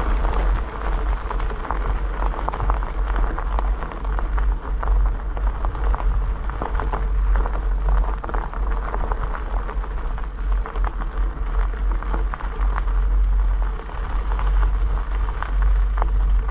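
Bicycle tyres rolling over a gravel road, a continuous crunching crackle, under heavy wind rumble on the microphone.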